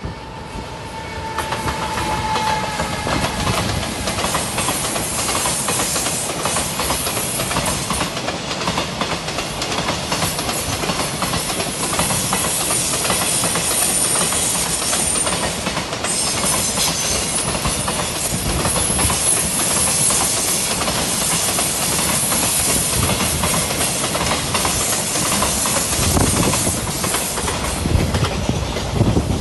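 JR Freight EF210 electric locomotive passing close by, with a brief falling whine about two seconds in. It is followed by a long train of container wagons rolling past with a steady rushing noise and repeated wheel clicks on the rails.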